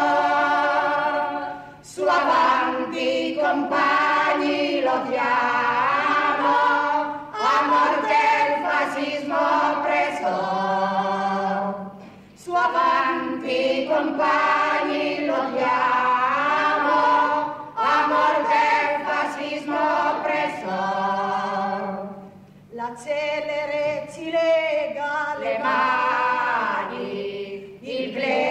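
Music: a choir singing, in phrases of about five seconds separated by short pauses.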